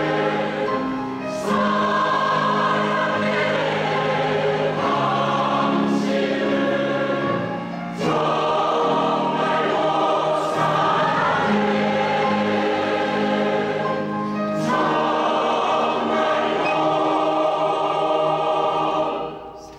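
Women's choir singing with piano accompaniment, in flowing phrases. Near the end a long held chord stops.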